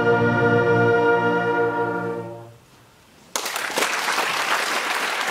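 Concert wind band holding its final chord, which dies away a little over two seconds in; after a brief hush, audience applause breaks out suddenly.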